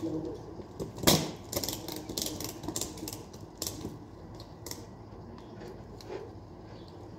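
Clicks and knocks of hands working the plastic strapping on a cardboard cargo box: one sharp knock about a second in, then a quick run of small clicks that dies down after about four seconds.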